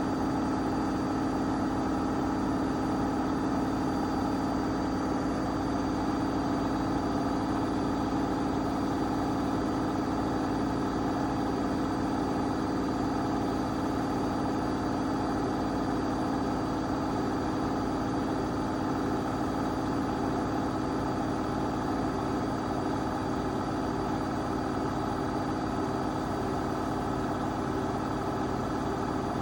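AEG 8000 washing machine running, its drum motor giving a steady, unchanging hum.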